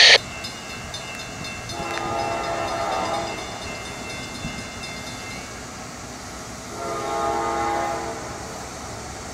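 Diesel locomotive air horn sounding two long blasts, each about a second and a half, roughly four seconds apart.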